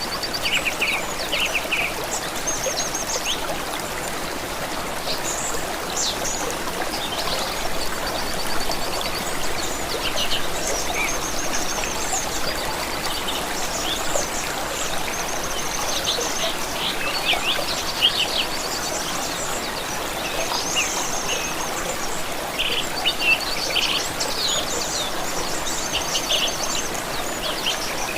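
Steadily running water, with several songbirds chirping and trilling over it throughout.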